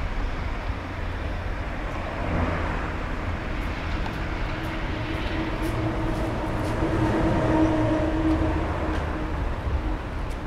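A Czech 'Bardotka' diesel locomotive (ČD class 751) running as it moves slowly through the station tracks, its six-cylinder diesel engine giving a low, steady rumble. It is fitted with an exhaust silencer, so the sound is muffled. The engine note grows louder in the second half, then eases near the end.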